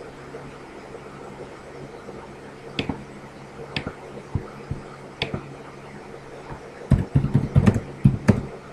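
A few single computer mouse clicks, a second or more apart, then quick typing on a keyboard from about seven seconds in. Underneath runs a steady low hum and hiss picked up by a laptop microphone.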